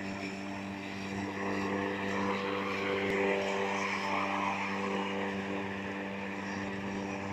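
LawnKing 1800-watt corded electric lawn mower running, its motor giving a steady hum with a whooshing noise over it, a little louder for a couple of seconds in the middle.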